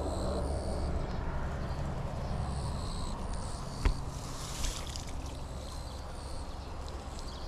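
A rope being hauled in hand over hand, drawing a mesh eel trap up out of a muddy creek, with water trickling over a steady low rumble. A single sharp click comes about four seconds in.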